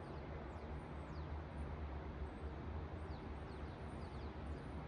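Steady low rumble of city traffic, with small birds giving short falling chirps now and then.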